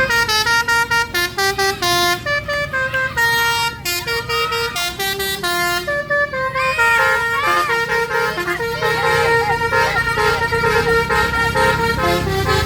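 Telolet basuri multi-tone air horn of the Tunggal Jaya 'Saturn' bus playing a melody: a fast run of short notes hopping between pitches, then from about six seconds in longer, overlapping notes. A bus engine runs underneath.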